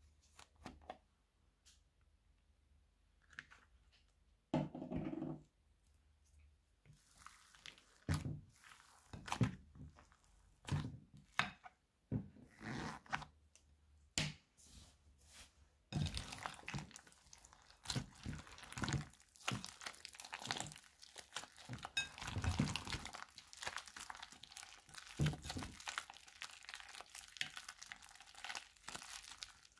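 Hands squishing and kneading slime and foam clay mixed with rubber bands in a glass bowl: sticky crackling, popping and crunching. The sounds come as separate squishes at first, then become a continuous crackle about halfway through once the mass is being mixed in earnest.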